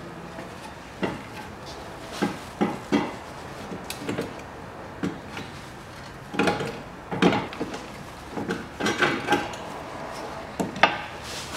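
Irregular metallic clinks and knocks as a Toyota Prius front steering knuckle with its hub is worked by hand onto the drive-shaft splines and the ball joint.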